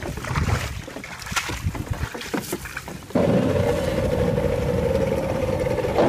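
Small fishing boat's engine running steadily, a held drone over a low rumble that cuts in abruptly about three seconds in; before it, scattered clicks and handling noise.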